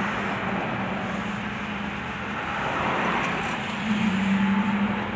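Car driving on a road, heard from inside the cabin: steady engine and tyre noise with a low hum that gets louder about four seconds in.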